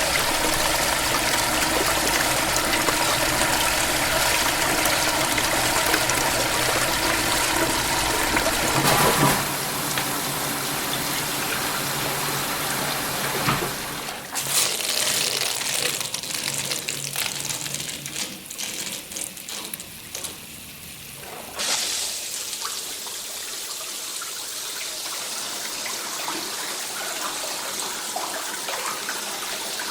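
Toilet flushing: water rushes loudly for the first several seconds, then falls away around fourteen seconds in to trickles and drips. About twenty-two seconds in it turns into a steady, quieter hiss of running water.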